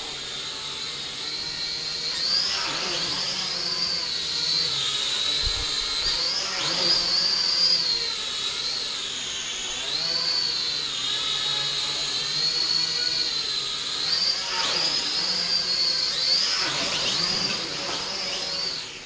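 A drone flying, its motors and propellers giving a high-pitched whine that rises and dips again and again as the throttle changes during manoeuvres. The whine drops away near the end.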